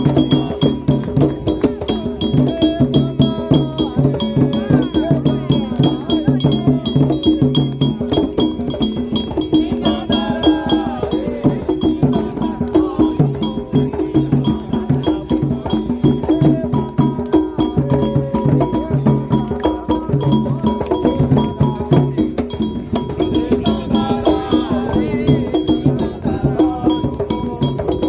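Candomblé percussion: atabaque hand drums played in a steady, fast toque rhythm with a dry wooden-sounding struck pattern running through it, and voices singing at times over the drums.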